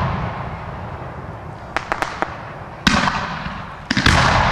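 Aerial fireworks bursting: a few sharp cracks about two seconds in, then two heavy bangs, one about three seconds in and one near the end, each trailing off in a hissing crackle.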